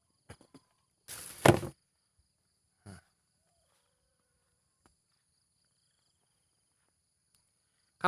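Faint, steady high-pitched insect drone, broken about a second and a half in by a short rustling thump, with a few faint clicks before and after.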